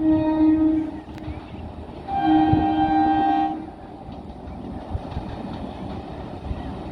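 Indian Railways locomotive horn sounding twice: a blast that ends about a second in, then a second blast of about a second and a half. Then comes the steady rushing noise of the train passing, with a few wheel knocks.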